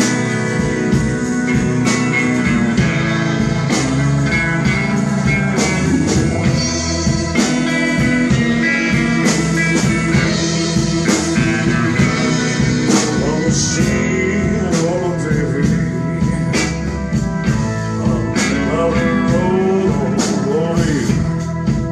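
A live band playing without vocals: electric and acoustic guitars over a drum kit keeping a steady beat. In the second half a lead line with bending notes comes in over the band.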